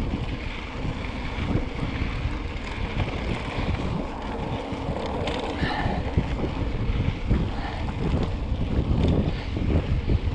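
Wind buffeting the microphone while riding a mountain bike, a steady low rumble that swells and eases.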